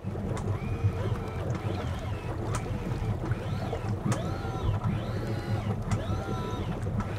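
Boat engine running at slow trolling speed: a steady low hum with water and wind noise over it.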